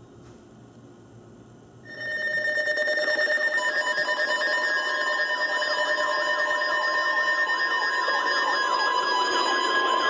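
Electronic emergency alert alarm starting about two seconds in: several steady tones layered with a fast warbling sweep, sounding continuously. It opens a tornado emergency alert.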